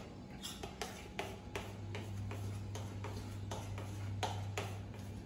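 Metal utensil stirring thick cake batter in a glass bowl, clicking against the glass about two to three times a second. A steady low hum runs underneath.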